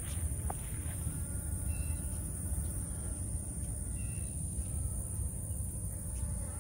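Outdoor ambience: a steady high-pitched insect drone over a constant low rumble, with short bird chirps about two and four seconds in.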